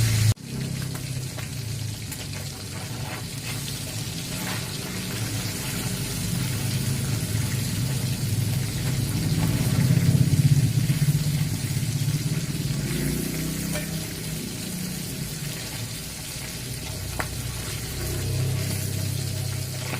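Stir-fry sizzling in a pan, a steady frying hiss that grows louder around the middle.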